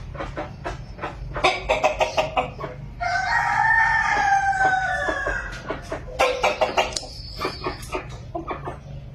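Chickens clucking in quick runs of short calls, with a rooster crowing once for about two and a half seconds about three seconds in, after which the clucking goes on.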